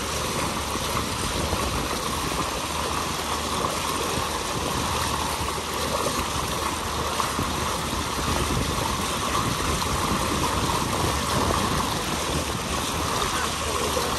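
Small motorboat under way: a steady rush of water from the churning propeller wash and hull, with wind and the boat's running drone underneath.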